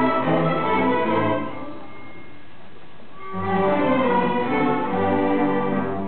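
Student string orchestra of violins and cellos playing a lively passage. The playing breaks off about a second and a half in and starts again, full and loud, a little past three seconds in.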